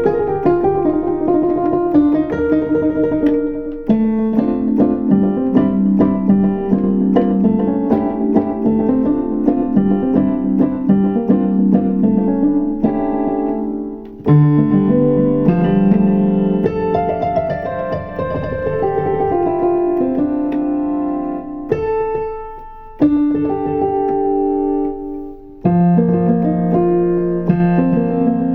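Roland VR-09 stage keyboard played on its European harp patch: runs and arpeggios of plucked-sounding notes, with short breaks about halfway and twice near the end.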